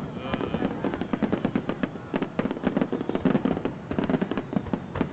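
Aerial fireworks finale barrage: shells bursting in rapid succession, a dense, unbroken run of bangs and crackling.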